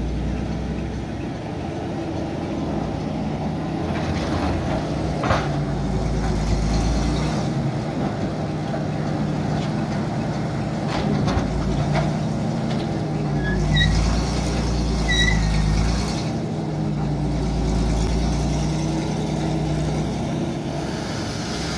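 Bay City crawler shovel's engine running under varying load, its low rumble swelling and easing several times, with a few metallic clanks and a few short squeaks partway through.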